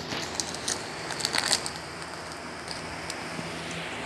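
Shih Tzu chewing at a plastic snack wrapper, the packaging crinkling and crackling in quick irregular clicks that are thickest about a second and a half in.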